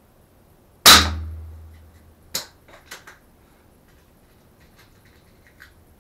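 A single air gun shot firing a .177 lead pellet at a wooden target board, about a second in, with a short low ring after it. A sharp click follows a second and a half later, then a few lighter clicks and faint ticks.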